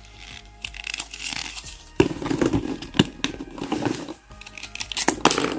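Hands handling packaging while a lipstick is taken out of its small paper carton: irregular rustling, scraping and sharp clicks, busiest in the second half, over soft background music.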